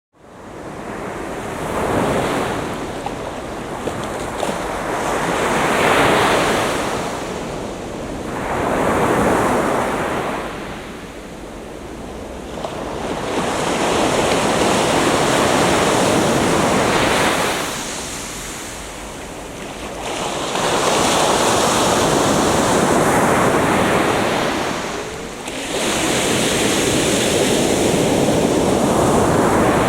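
Atlantic Ocean surf breaking and washing up the beach. It swells and eases in repeated surges, about six in half a minute, each lasting a few seconds.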